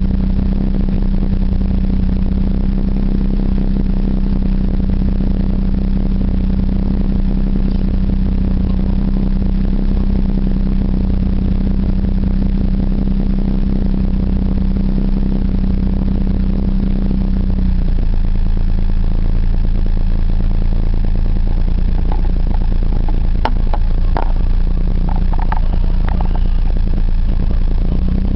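Car engine idling, heard from inside the cabin, with a steady hum. About two-thirds of the way in the hum drops away and a lower rumble takes over, and a few short high sounds come near the end.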